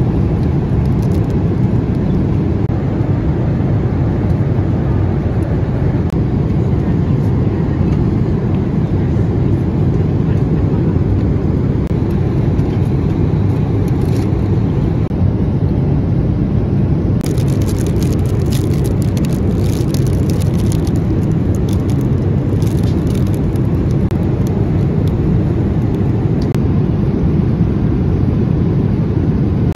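Steady airliner cabin noise: the even, loud rumble of the jet engines and airflow. Light clicking and rustling comes in around the middle for several seconds.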